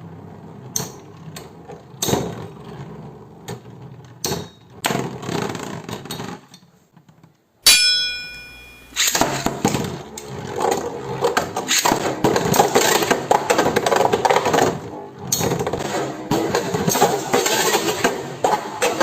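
Beyblade spinning tops in a battle: scattered clicks and knocks, then a sharp metallic ding that rings briefly about eight seconds in, followed by a dense rattling clatter as the tops spin and collide.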